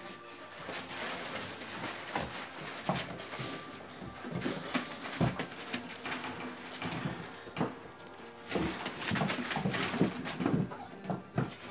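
Young Beauceron puppies scuffling about on newspaper: crinkling, rustling paper and small knocks throughout, with a few short puppy whines and yips.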